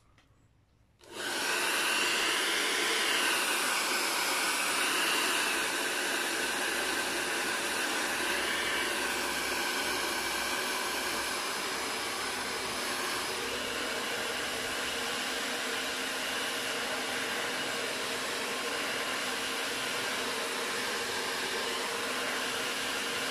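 Handheld hair dryer blowing steadily, a rush of air with a motor whine, starting about a second in and a little louder in the first few seconds.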